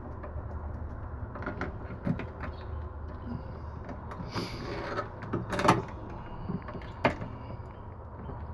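Stiff insulated wires and a screwdriver being handled at an inverter's AC output terminal block: scattered light clicks, taps and rubbing, with two sharper clicks in the second half, over a steady low hum.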